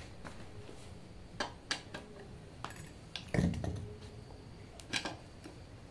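A steel hand tool clinking and knocking against the metal shell and accumulator clamp of an air-conditioner rotary compressor: a handful of irregular sharp metal clinks, the loudest about three and a half seconds in with a dull thump.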